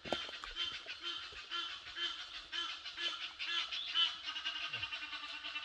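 A flock of geese honking, short calls repeating about twice a second.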